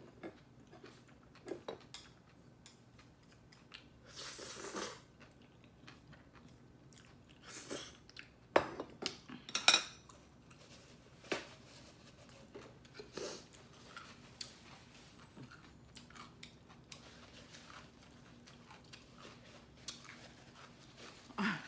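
A person eating close to the microphone: chewing, with intermittent clicks and clinks of utensils against dishes. A few sharp clicks about eight to ten seconds in are the loudest sounds.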